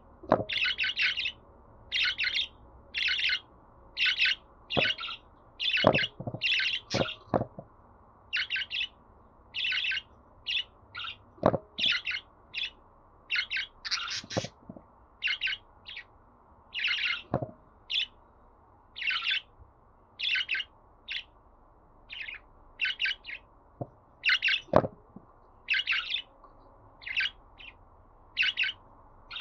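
Budgerigar chirping in short, quick calls, about one to two a second, with a few sharp clicks in between.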